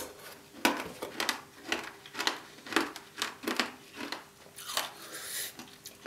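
Close-miked chewing with the mouth closed, a steady run of crunchy, wet chews about twice a second: a mouthful of hard gingerbread being worked down with custard.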